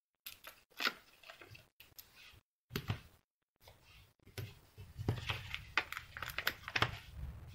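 Small clicks and rustles of cardstock and the paper backing of foam adhesive dimensionals being handled, peeled and pressed onto a card panel. The sounds are sparse at first and grow busier about halfway through, with a low rumble under them.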